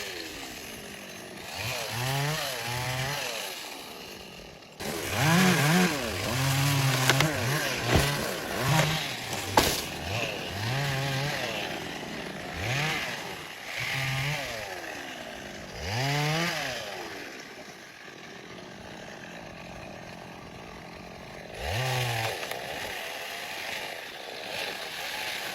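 Chainsaw engine revving up and dropping back again and again, with a steadier, quieter idle for a few seconds late on.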